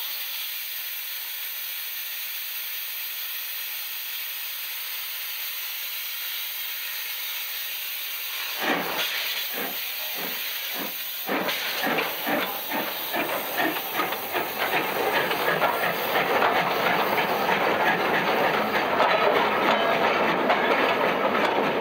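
GS&WR J15 class 0-6-0 steam locomotive No. 186 standing and hissing steam steadily, then starting away: exhaust chuffs begin about a third of the way in at about two a second, quickening and growing louder as the train gathers speed past.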